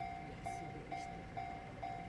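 Japanese railway level-crossing warning bell ringing: a short high electronic ding repeating evenly about twice a second, the signal that a train is approaching the crossing.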